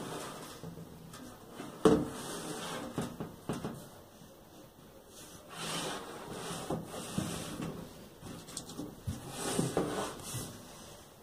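Metal bread box covered in glued magazine paper being turned over and handled on a wooden tabletop. A sharp knock comes about two seconds in, followed by scattered light knocks and rubbing.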